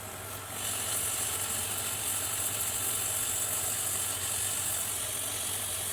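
Hot air rework station blowing a steady hiss of hot air, switched on about half a second in, to solder new ICs onto a circuit board.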